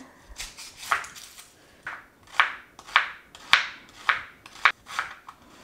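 Chef's knife cutting through an onion and striking a plastic cutting board, a run of sharp knocks about two a second.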